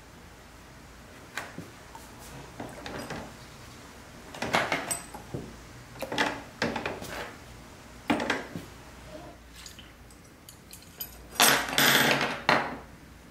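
Small metal toy axles with plastic gears clinking and clattering against each other, a bucket and the workbench as they are handled, with a loud burst of clattering near the end.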